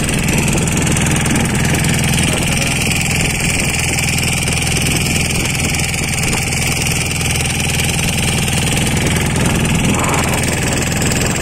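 Motorboat engine running steadily while the boat moves along the river.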